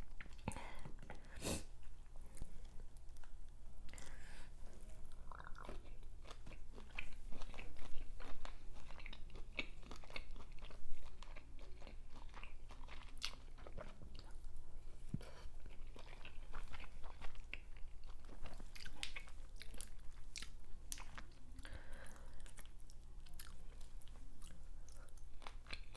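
Close-miked mukbang eating of seafood: a person chewing and biting, with irregular wet crunches and clicks and a couple of louder crunches partway through.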